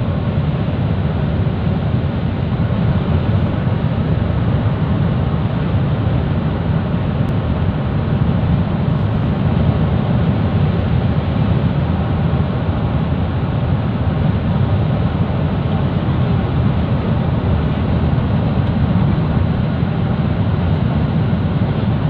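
Steady road and engine noise of a car cruising at highway speed, heard from inside the cabin: a constant low rumble that doesn't change.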